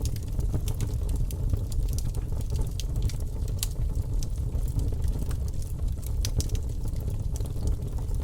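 Wood campfire crackling: frequent, irregular sharp pops and snaps over a steady low rumble.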